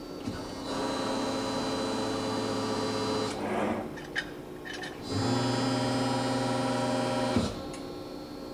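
60-ton Cincinnati hydraulic CNC press brake cycling. The steady hum of its hydraulic system swells into a louder, fuller drone for about two and a half seconds, with a short hiss and a couple of clicks after it. It then rises again for about two seconds before dropping back to the quieter idle hum near the end.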